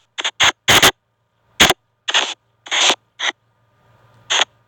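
SP White Noise spirit box app playing short, choppy bursts of hiss and garbled radio-like sound, about eight of them at irregular intervals with silent gaps between.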